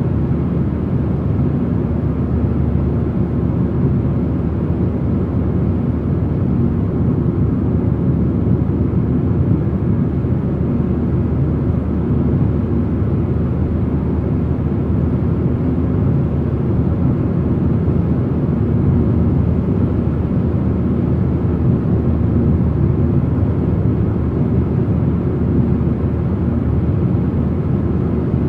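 Car driving at motorway speed: a steady, low rumble of road, tyre and engine noise.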